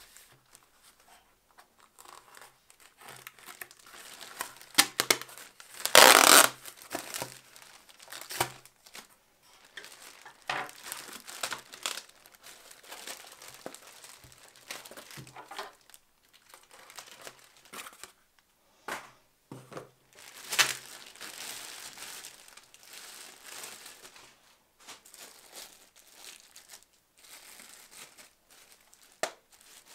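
Clear plastic packaging bag crinkling and rustling as it is handled, with a cardboard sleeve scraping against it, in irregular bursts and short pauses; the loudest burst comes about six seconds in.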